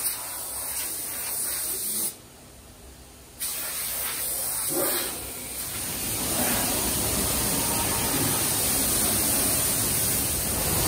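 Compressed-air spray gun hissing steadily as ceramic glaze is sprayed onto toilet pieces. The hiss drops away for about a second and a half about two seconds in, then runs on steadily.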